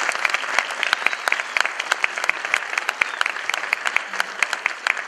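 Audience applauding steadily, with many single hand claps standing out sharply above the general clapping.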